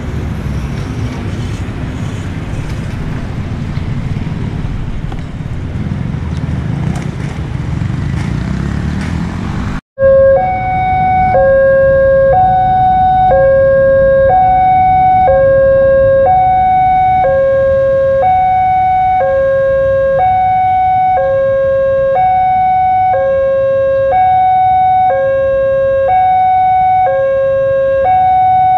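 Road traffic noise, then, after an abrupt cut about ten seconds in, a railway level-crossing alarm sounding steadily: two electronic tones, low and high, alternating about once a second, the warning that a train is coming as the barrier lowers.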